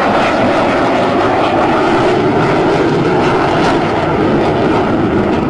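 Fighter jet's engine noise, loud and steady, as the jet flies overhead.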